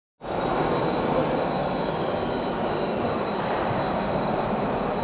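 Steady mechanical din of radio-controlled model trucks, tractors and excavators running on a dirt course, with a thin, steady high whine running through it. The noise carries the echo of a large hall.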